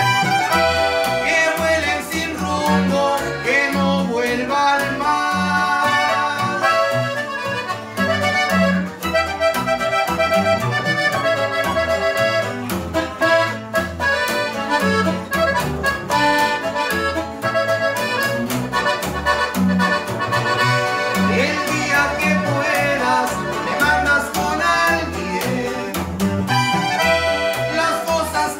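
Norteño instrumental break: a Gabbanel button accordion plays the lead melody over a strummed guitar and a plucked tololoche (upright bass) keeping a steady bass beat.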